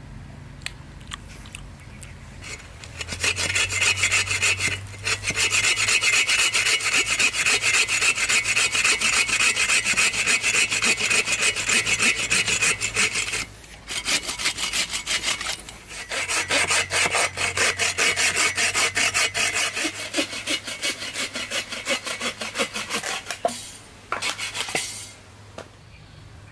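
Bow saw cutting through a log in fast, steady back-and-forth strokes, with two short breaks partway through. The sawing stops about a second and a half before the end.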